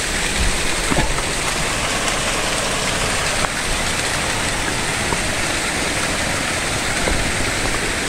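Shallow stream running over rocks, a steady rushing hiss, with a few faint clicks.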